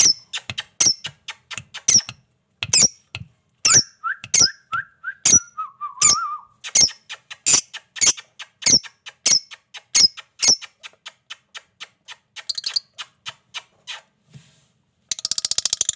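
Pet parrots giving a rapid string of short, shrill chirping calls, about three or four a second, with a short run of lower notes falling in pitch a few seconds in. After a brief lull, a dense, fast buzzy chatter starts near the end.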